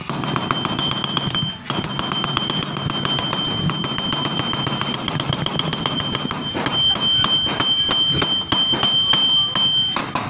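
Hammer peening a steel rivet on the axle of a bag wheel: a long run of sharp metallic taps with a high ringing tone. The strikes come faster and harder in the second half, spreading the rivet head so the wheel stays on.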